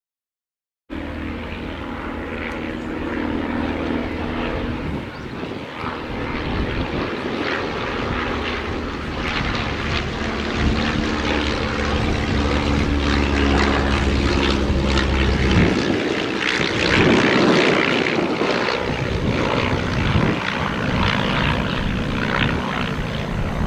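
Piston engines and propellers of vintage biplanes, a de Havilland Tiger Moth and a Stampe SV4, running in flight. The sound starts about a second in; a steady engine note gives way about two-thirds of the way through to a broader rushing propeller and air sound.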